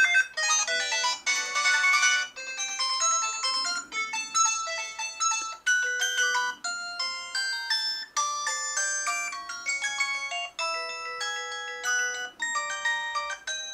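Samsung Anycall SPH-W8400 slide phone playing one of its built-in ringtones through its small speaker: a synthesized melody of quick, bright notes, thin with no bass.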